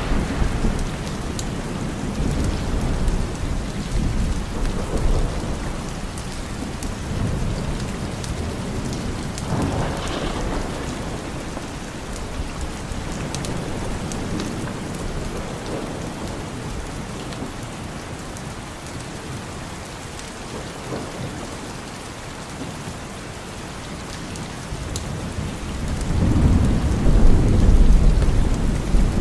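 Steady heavy rain with rolling thunder: a rumble fades at the start, another comes about a third of the way in, and the loudest swells near the end.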